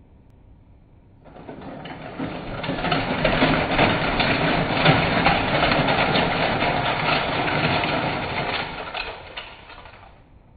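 Dense rattling clatter of many small die-cast toy cars sliding and tumbling out of a plastic toy dump truck's tipping bed. It starts about a second in, builds to a steady clatter and fades out near the end.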